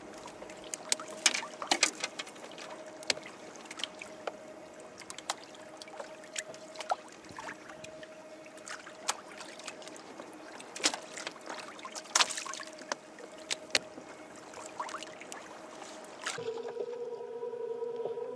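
Steady faint hum of a small electric motor aboard a fishing kayak, with many scattered sharp clicks and knocks of gear being handled. About sixteen seconds in, a louder, lower-pitched electric hum takes over.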